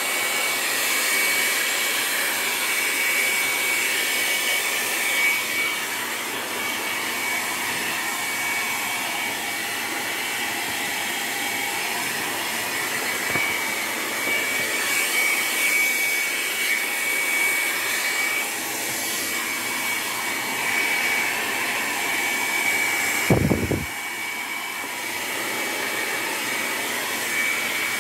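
Handheld hot-air blower running steadily with a thin high whine, drying the wet watercolour paint. A brief thump sounds about five seconds before the end.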